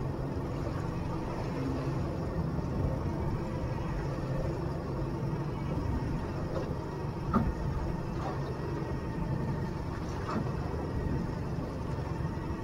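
Outboard motor running at a steady trolling speed, a constant drone, with a single short knock about seven seconds in.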